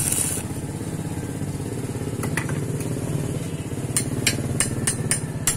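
A small petrol engine running steadily at a fast, even beat. A short hiss comes at the start, and from about four seconds in there is a run of sharp taps, about three a second.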